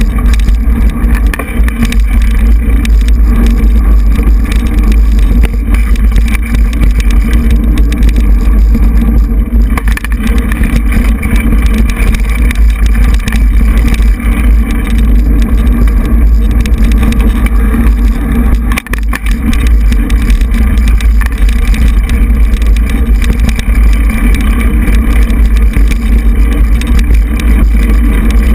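Mountain bike riding a dirt singletrack, heard through a handlebar-mounted GoPro: a loud, steady low rumble of wind and vibration on the microphone, with constant small knocks and rattles from the trail.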